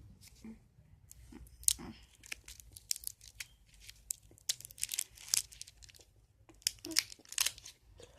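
Cough drop wrappers being torn and crinkled open, an irregular run of sharp paper crackles.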